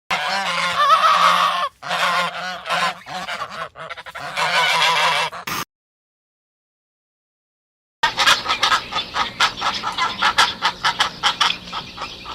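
Geese honking for about five and a half seconds, then a silent gap, then a second run of rapid, repeated fowl calls.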